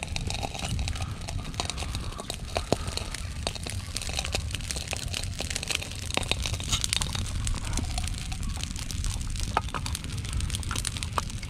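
Open wood fire crackling, with many irregular sharp pops and snaps over a low steady rumble, as it is stoked up to burn hard.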